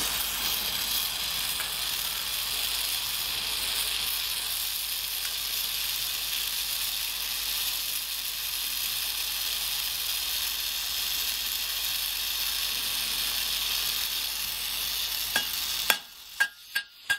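Small oxy-fuel gas torch burning with a steady hiss as it heats a steel rivet red hot to set it. Near the end the hiss stops and a hammer strikes the hot rivet on the anvil a few times in quick succession, each blow ringing.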